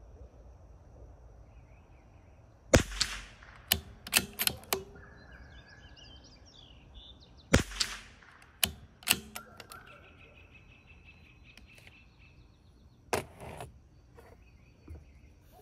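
Three shots from a CZ 457 bolt-action .22 rimfire rifle firing Eley Match ammunition, about five seconds apart, each a sharp crack with a short ringing tail. After the first two shots come several quick metallic clicks of the bolt being worked to chamber the next round.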